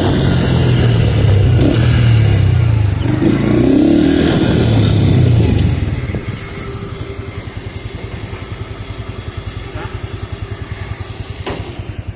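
Honda Pop 110i's small single-cylinder four-stroke engine, fitted with a sport air filter that gives it its growl, running under way with the revs rising and falling. About six seconds in it drops to a quieter, evenly pulsing low-rev run.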